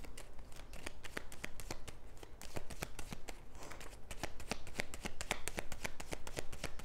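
Tarot deck being shuffled by hand: a continuous run of quick, irregular card clicks.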